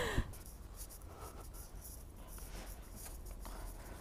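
Faint scuffing footsteps and light rubbing, irregular and soft, over a low steady rumble.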